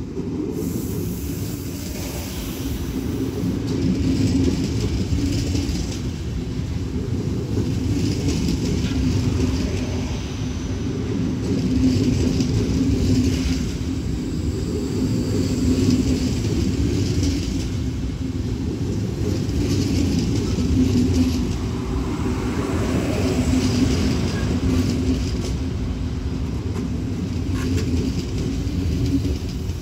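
SBB InterRegio train passing slowly alongside. Its wheels make a steady low rumble on the rails, swelling about every four seconds as each coach goes by.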